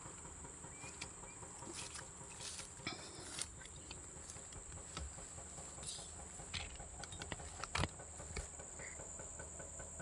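A steady, high-pitched chorus of insects, with scattered light clicks and patters over it; the sharpest click comes near the end.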